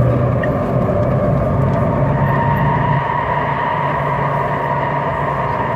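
MTR South Island Line train running through a tunnel: a steady rumble of wheels and running gear with a thin whine held above it.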